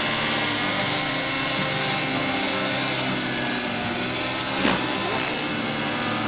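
Radio-controlled scale model of an SA-319B Alouette III helicopter in flight, its engine and rotors running steadily as it flies past and away. A brief knock about four and a half seconds in.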